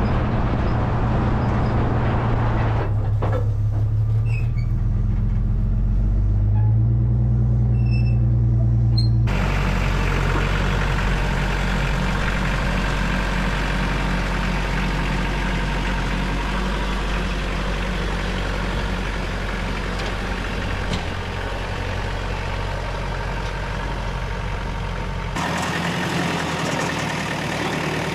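Vehicle engine and road noise: a steady low engine drone as a pickup tows a flatbed trailer carrying a Kubota tractor. About nine seconds in it changes abruptly to the louder, noisier run of the Kubota tractor's diesel engine as the tractor moves on the trailer and in the field, changing again briefly near the end.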